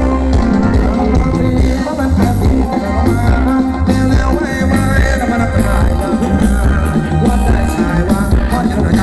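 Thai luk thung dance music from a live band played loud through stage speakers, with a steady driving beat, heavy bass and a singer's voice.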